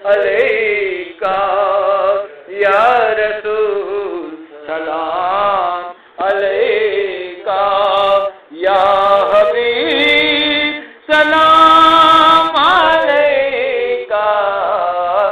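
Solo voice singing a devotional Urdu salam in long, ornamented phrases, with short breaks for breath between them.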